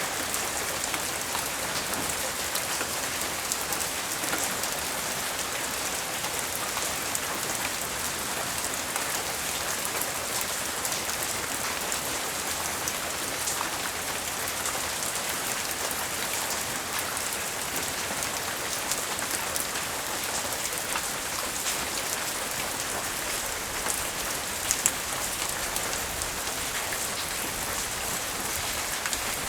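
Steady rain falling on surfaces, an even hiss speckled with fine drop ticks, with a couple of louder taps about 25 seconds in.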